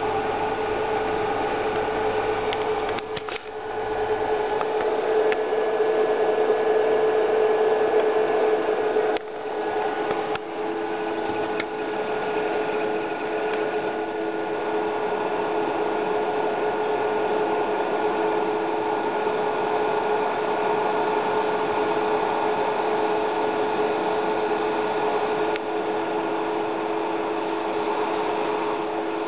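Steady electrical hum from a water-heating coil driven at audio frequency. It is a buzzing drone with a clear steady pitch that breaks off briefly twice early on, after which a second, lower tone joins in.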